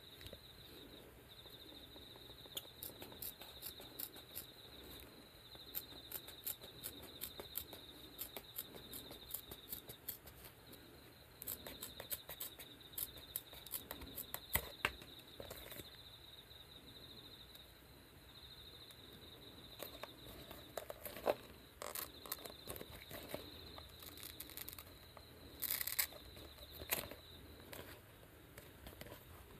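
Faint crackling and clicking of hook-and-loop fastener and stiff pads being handled, as a bowling shoe's replaceable slide and heel pads are pressed onto and pulled off its hook-and-loop sole, with a short louder rip near the end. A faint steady high-pitched tone runs underneath.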